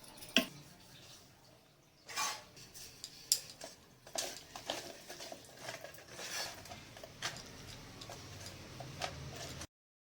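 Irregular clinks and knocks of kitchen utensils and dishes, cutting off suddenly near the end.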